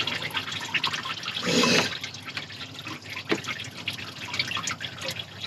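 Engine coolant draining from the cooling system and dripping and splashing into a catch bowl in irregular drips, with a brief louder burst about a second and a half in.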